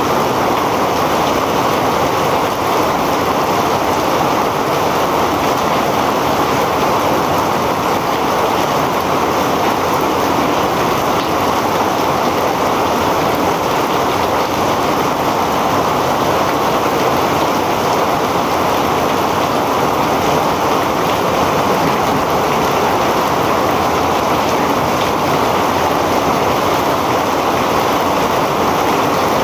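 Heavy rain falling steadily, a dense, even rush of water with no breaks.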